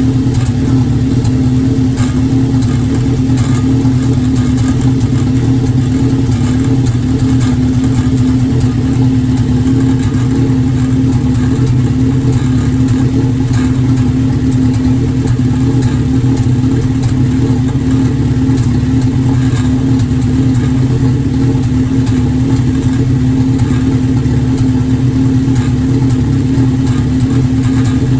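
Formula Enterprise race car engine running steadily at one speed with a misfire that a new intake manifold gasket has not cured.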